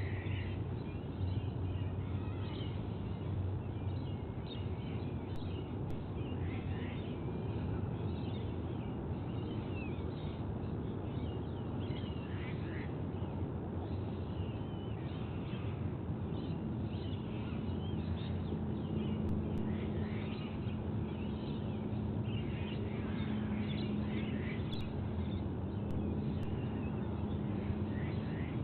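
Many short, high bird chirps and calls, scattered throughout over a steady background noise. A low steady hum joins about halfway through.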